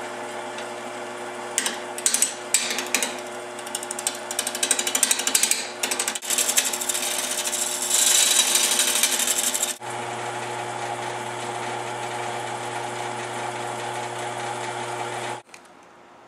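Wood lathe running with a steady motor hum while a turning tool cuts into the face of a spinning wood blank: a rough scraping full of clicks that grows loudest about six to ten seconds in. It then settles into a steadier run and cuts off abruptly near the end.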